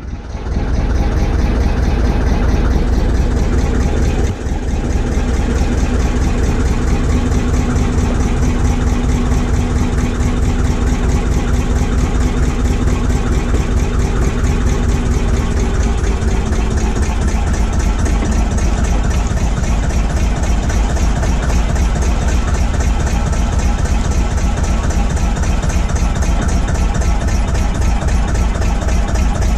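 Narrowboat's diesel engine running steadily under way at cruising speed, a low, evenly pulsing chug.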